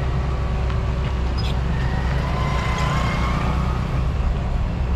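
XCMG XE215 crawler excavator's diesel engine running steadily, with a faint thin whine rising slightly in the middle.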